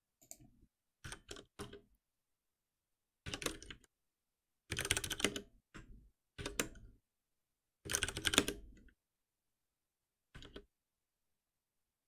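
Computer keyboard typing in short bursts of rapid keystrokes, the longest runs in the middle, separated by complete silence.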